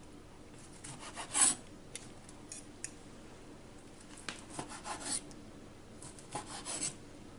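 A blade sawing back and forth through partly cooked chicken breast, giving three short bouts of rasping strokes.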